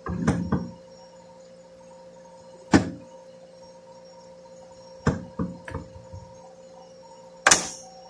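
A metal seal-installer tool clicking and knocking against an automatic transmission valve body as rubber seals are pressed into its holes, over a steady faint hum. There is a quick cluster of knocks at the start, a single sharp knock a little before three seconds, a few more around five to six seconds, and a louder, longer one near the end.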